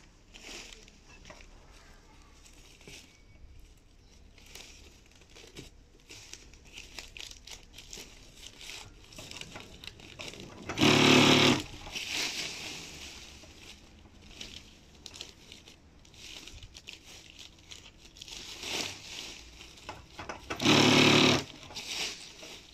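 Plastic mesh and leaf-cut camouflage netting rustling and crinkling as it is handled, with an industrial sewing machine running in two short bursts of about a second each, about ten seconds apart; the machine bursts are the loudest sounds.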